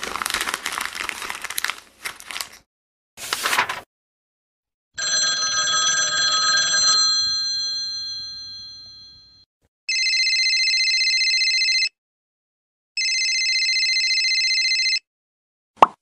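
A run of separate sound effects: a noisy burst, a short second burst, and a ringing tone that fades away over a few seconds, then a telephone bell ringing twice, each ring a rapid trill lasting about two seconds, with a second of silence between them.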